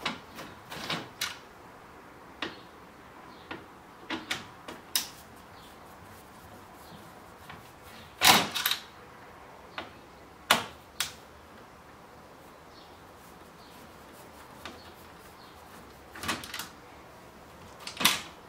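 Scattered clicks and knocks of a screwdriver and hands working the screws that hold a loudspeaker in a Metz flat-screen TV's metal chassis. The loudest knocks come about eight and ten seconds in, with a cluster near the end.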